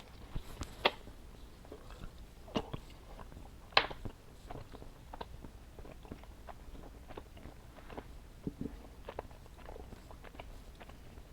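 Close-miked mouth chewing of a Laffy Taffy candy: soft, wet clicks and smacks, with a few louder ones in the first four seconds.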